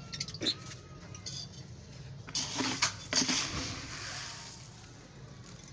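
Pet parrots making small clicks and taps, with two short, harsh squawks about halfway through.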